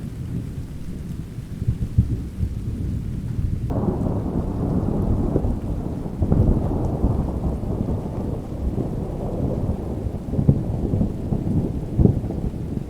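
Thunder rumbling over rain. About four seconds in a louder peal breaks in and goes on rolling, swelling and easing several times.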